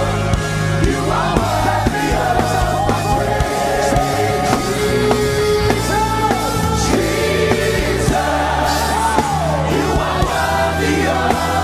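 Live gospel worship music: a band with steady bass and drums, and a voice singing a gliding melody over it.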